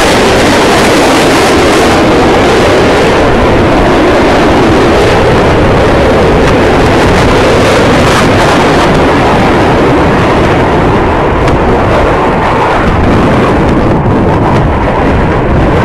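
Loud roar of F/A-18 Hornet jet fighters flying past in formation. The roar holds steady, and the hiss in it eases a little over the last few seconds.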